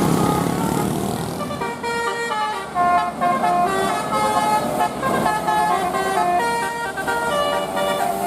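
Indonesian 'telolet' Basuri multi-tone bus horn playing a quick tune of short stepped notes. The tune starts about two seconds in, after a moment of engine and traffic noise.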